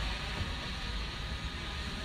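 DJI Mavic Air quadcopter's propellers whirring steadily with a faint whine, and wind rumbling on the microphone.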